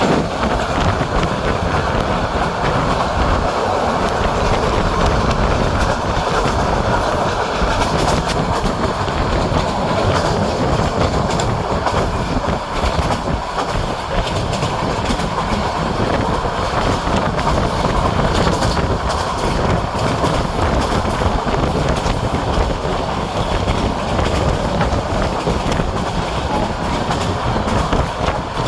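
Train running at speed, a steady loud rumble with wheels clattering over the rail joints.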